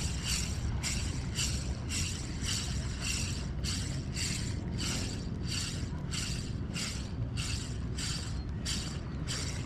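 Ryobi Ultrapower 1000 spinning reel being cranked at a steady pace, a rhythmic whirring swish about twice a second with each turn of the handle. A low steady rumble runs underneath.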